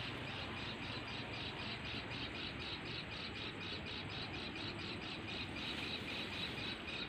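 Insects, crickets by the sound, trilling in a steady chorus that pulses about six times a second.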